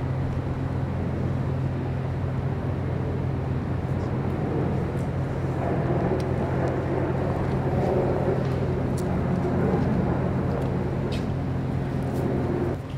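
Steady low rumble and hum of outdoor background noise, with a haze that swells in the middle and a few faint ticks; the level drops suddenly near the end.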